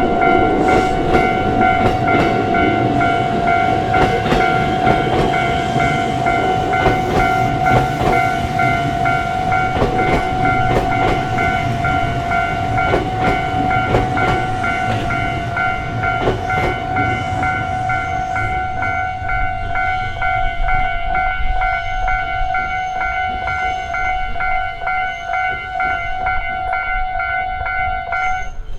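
Japanese level-crossing warning bell ringing steadily while a train runs over the crossing, its wheels clicking over the rail joints. The train noise fades in the later part, and the bell cuts off suddenly near the end.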